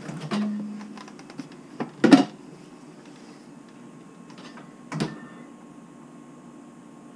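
Refrigerator door pulled open, then clicks and clunks of a can being taken out from among the bottles. The loudest knock comes about two seconds in, and another about five seconds in.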